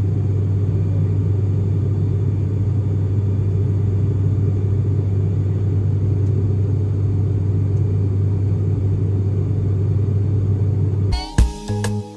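Steady, loud low rumble of a vehicle in motion, with a deep hum underneath. It cuts off abruptly near the end as music starts.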